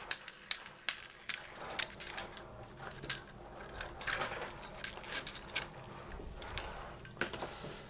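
Light, irregular clicks and small metallic clinks from handling a pull-down kitchen faucet and its sprayer hose while taking its mounting nut off.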